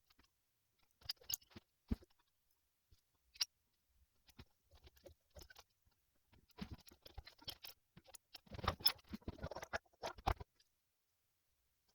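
Scattered light clicks, taps and scrapes of hand tools and metal parts being handled, with a denser run of scraping and knocking about nine seconds in.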